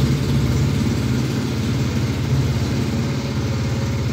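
A steady low mechanical hum running unbroken at an even level.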